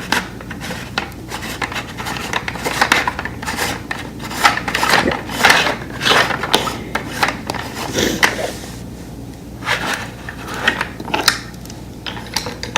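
Irregular rubbing, rustling and light clicks of a plastic toy-train turntable and its wrapping being handled and set up.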